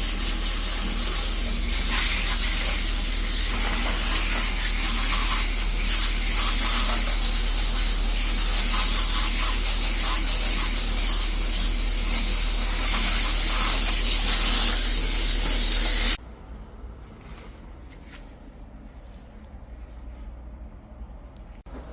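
High-pressure washer spraying, a loud steady hiss over a low motor hum, cutting off suddenly about 16 seconds in.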